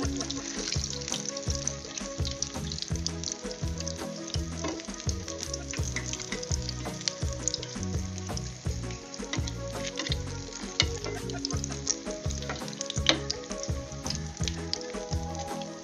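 Potato bites deep-frying in hot oil: a steady sizzle dense with small crackling pops, with a spatula stirring through the pot.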